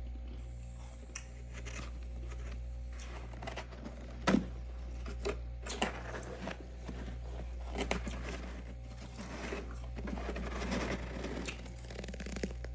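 A hand scraping and digging into packed freezer frost, giving a run of irregular crunches and scrapes, the loudest about four seconds in, over a steady low hum.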